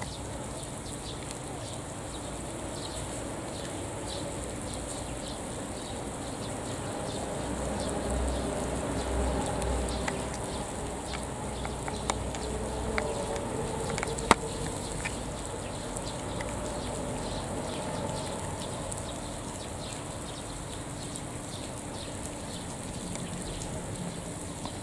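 Outdoor ambience: a steady high hiss with a faint wavering murmur through the middle, and a few sharp clicks, the loudest about fourteen seconds in.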